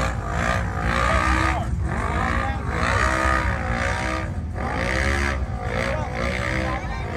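Off-road vehicle engines revving, their pitch rising and falling again and again over a steady low rumble.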